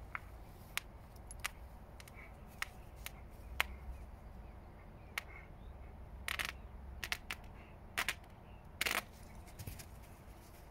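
Two borzois tugging at and tearing apart a stuffed toy monkey: irregular sharp snaps, with a few short rips of fabric and stuffing near the end.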